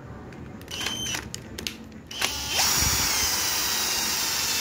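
Cordless drill-driver unscrewing a long through-bolt from a door lever handle set: a short spin about a second in, then a steady high-pitched run starting about two seconds in.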